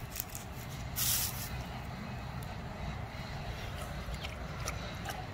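Wind rumbling steadily on the microphone outdoors, with one short hissing rustle about a second in.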